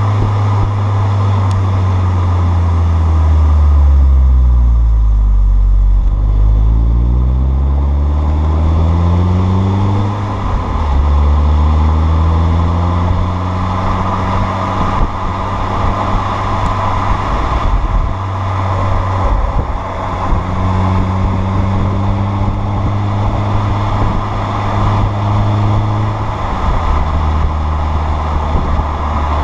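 Audi A4 B6 driving with a Borla catback exhaust, its deep exhaust note steady throughout. Near the start the pitch drops and then climbs as the engine revs up. It then cruises with small changes and steps down twice, like upshifts.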